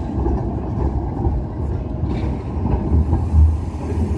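A regional train moving through the station, a steady low rumble.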